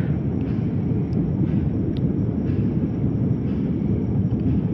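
Steady low rumble of a jet airliner in flight heard from inside the passenger cabin: engine and airflow noise.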